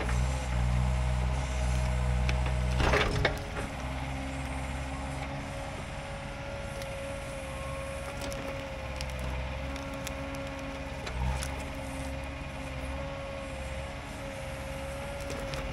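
Mini excavator's diesel engine running under hydraulic load with a steady whine as the ripper tooth tears at a small stump. A sharp woody crack about three seconds in, after which the engine runs more lightly, with scattered small snaps.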